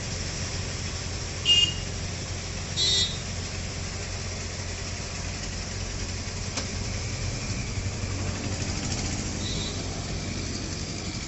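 Crane truck's engine running steadily, with two short vehicle-horn toots about a second and a half and three seconds in, and a single sharp click a little past halfway.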